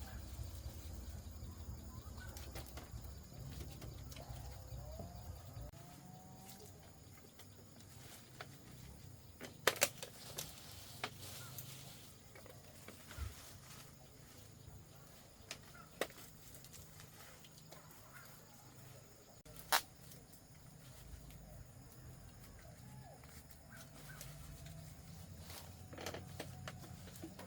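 Quiet ambience with faint bird calls and a few sharp knocks, the loudest about a third and two-thirds of the way through.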